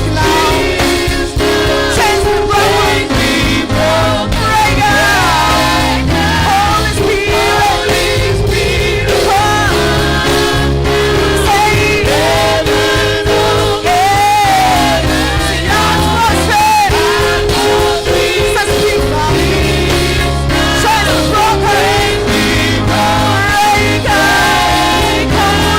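Gospel choir singing with a live band behind it: voices with vibrato over a bass line that steps from note to note and a steady drum beat.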